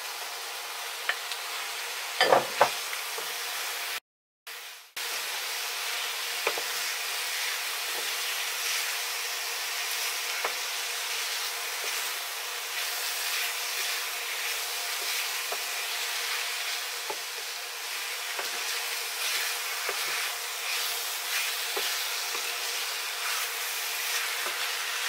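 Chicken pieces and onion-spice paste sizzling in a non-stick frying pan, stirred with a slotted wooden spatula that scrapes and taps against the pan. A louder knock comes about two seconds in as the chicken goes in from a bowl, and the sound cuts out briefly about four seconds in.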